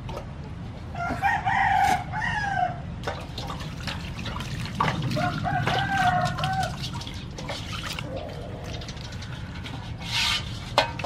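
A rooster crowing twice, each call lasting about two seconds, over short splashes of water in a metal basin as a raw chicken is washed by hand.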